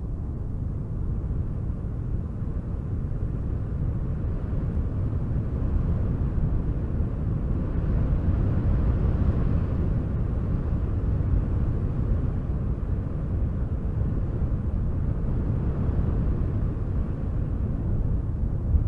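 Wind blowing steadily, a low rushing noise that swells and eases slowly.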